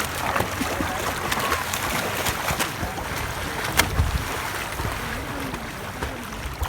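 Lake water washing and lapping at the shore, with gusts of wind rumbling on the microphone and a few small splashes or knocks.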